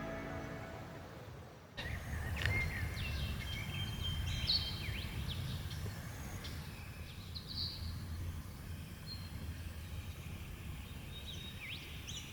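Background music fades out, and after a sudden cut, several birds chirp and give quick whistles over a steady low outdoor rumble.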